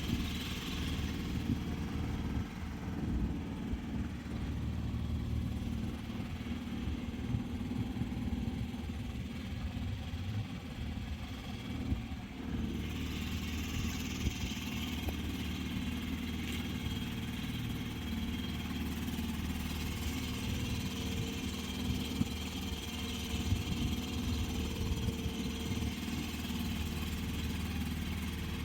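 Petrol engine of a backwater passenger boat running steadily under way, a constant low hum.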